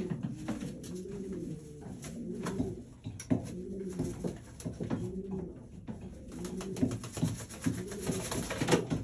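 Racing pigeon cock cooing over and over in a breeding nest box, a run of rising-and-falling coos in courtship of its hen, with scattered small taps. Near the end the birds scuffle and flap their wings in a brief rustling flurry.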